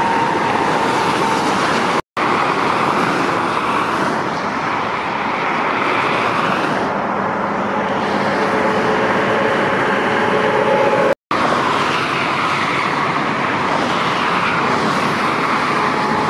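Heavy lorries driving past on a motorway: a steady rush of tyre and engine noise, cutting out abruptly for a moment twice, about two seconds and eleven seconds in.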